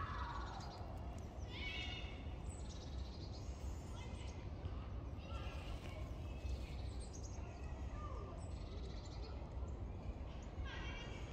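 Outdoor ambience: a steady low rumble with a few distant high calls over it, one falling in pitch right at the start and others about two, six and eleven seconds in.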